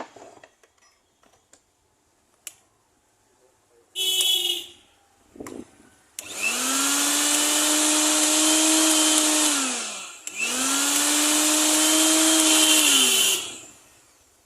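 Mixer grinder's universal motor run in short bursts: a brief blip, then two runs of about three to four seconds. Each time the whine rises quickly to full speed, holds steady, and falls away as the motor coasts down after switch-off.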